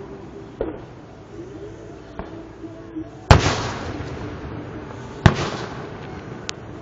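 Aerial fireworks shells bursting: two loud booms about two seconds apart, past the middle, each followed by a rolling echo, with smaller pops before them.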